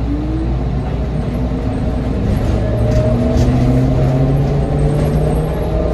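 Articulated electric trolleybus (New Flyer XT60) accelerating, its traction motor whining in several tones that rise steadily in pitch as speed builds, over a low road rumble.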